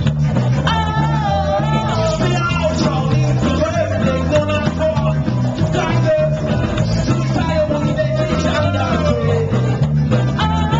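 Live band playing loudly, with singing and a horn section of saxophones over electric guitar and a steady, rhythmic bass line.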